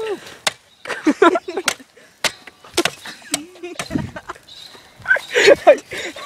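A mobile phone on a shovel blade struck against a tree trunk: several sharp cracks and knocks as it breaks apart, with short shouts in between.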